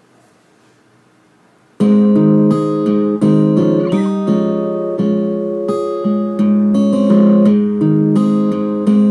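Acoustic guitar strumming chords, starting suddenly about two seconds in after faint room noise, each chord ringing out before the next is struck.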